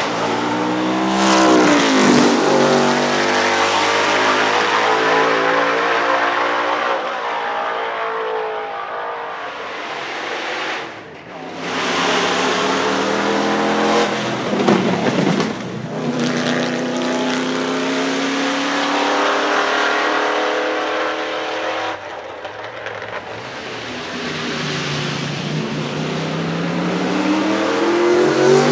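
NASCAR stock cars' V8 engines at high revs, one car after another passing and pulling away, the engine note rising as they accelerate and falling as they go by.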